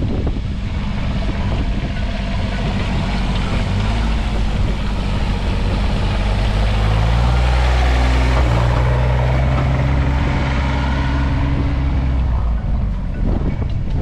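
A motor vehicle's engine running and growing louder, its pitch stepping up about halfway through, then the engine sound ends shortly before the end. Wind buffets the microphone.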